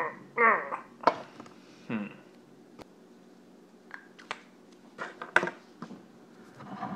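A can of spinach being worked open by hand: a short strained grunt near the start, then scattered metallic clicks and taps, the sharpest about five seconds in, with another short vocal strain near the end.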